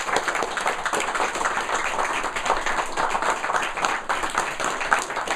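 A small group of people applauding, many quick hand claps running together without a break.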